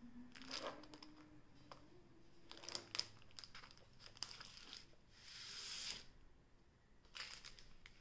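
Faint crinkling and tearing of a clear plastic shrink-wrap being pulled open around a paper pad: scattered crackles, with a longer rustle about five to six seconds in.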